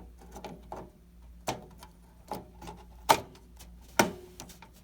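Sharp plastic knocks and taps from RAM sticks being pressed down into motherboard memory slots, the two loudest about three and four seconds in. The slot latches give no clear click, which leaves the builder unsure the memory is fully seated.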